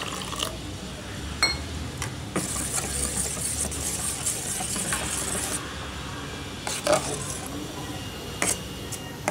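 A steel spoon stirring water into thick ragi and pearl millet porridge in a steel pot: wet scraping and mixing, with a few sharp clinks of spoon on metal.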